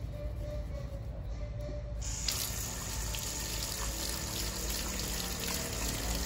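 Water running steadily, starting suddenly about two seconds in.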